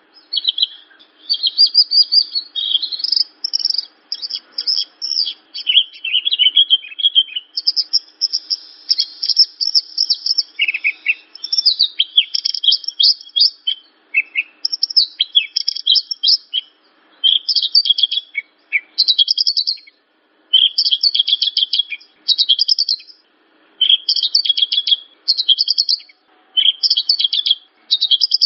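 Javan bush lark (branjangan) singing: rapid, high chattering song phrases of quick repeated notes. The song runs almost continuously at first, then breaks into shorter phrases with brief pauses in the second half.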